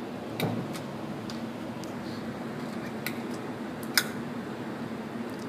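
Scattered metallic clicks from handling an ISSC M22 .22 LR pistol that has been jamming on feeding and ejection. The sharpest snap comes about four seconds in, over a steady low hum.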